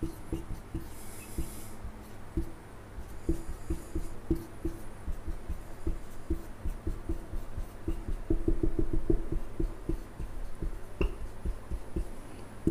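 Marker pen writing on a whiteboard: irregular light taps and rubs as each stroke is drawn, with a quicker run of taps about eight seconds in and one sharper click near the end.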